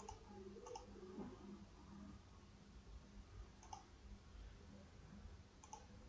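Computer mouse buttons clicking faintly, four separate clicks spread over a few seconds, over a quiet low room hum.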